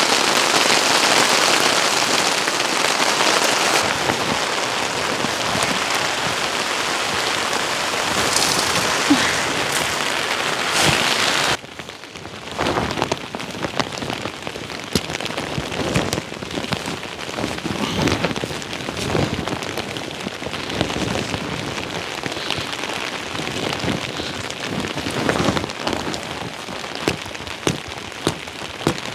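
Heavy rain pouring down in a dense, steady hiss. About twelve seconds in it changes abruptly to a quieter, lighter patter of separate drops tapping on a surface.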